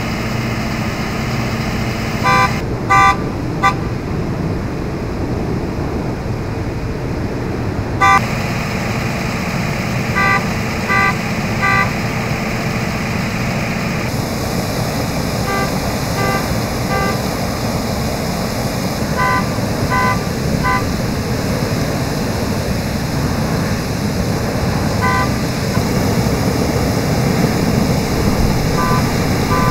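Steady rushing hiss of water shooting from a sheared fire hydrant, with short beeps in groups of two or three sounding several times over it.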